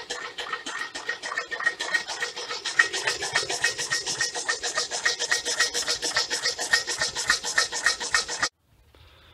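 Homemade Stirling engine running, its pistons scraping and squeaking in their PTFE dry seals in a fast, even rhythm of about eight strokes a second. It cuts off suddenly near the end.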